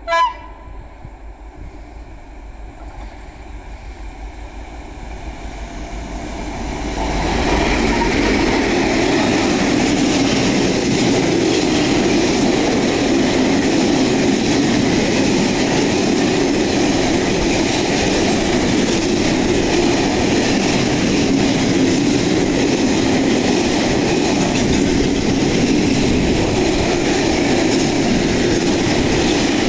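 PKP class ST44 (M62-type) diesel locomotive hauling a freight train: a short horn blast right at the start, then the two-stroke V12 diesel engine and train noise grow louder as it approaches. From about seven seconds in, open freight wagons roll past steadily with wheel noise on the rails.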